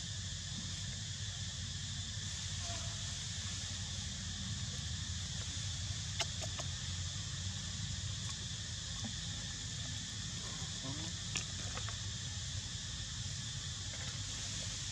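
Steady high-pitched insect chorus with a low rumble underneath, broken by a couple of sharp clicks about six and eleven seconds in.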